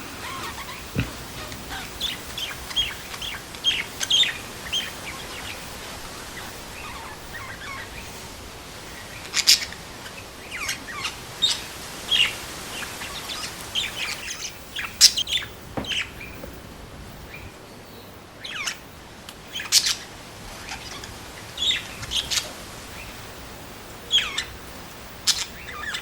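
Small birds chirping, many short, sharp calls coming irregularly throughout, a few of them louder than the rest.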